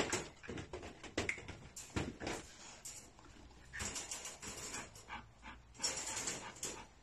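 A dog moving into a wire crate and settling down on its cushion: scattered claw clicks and light knocks, with short bouts of panting about four and six seconds in.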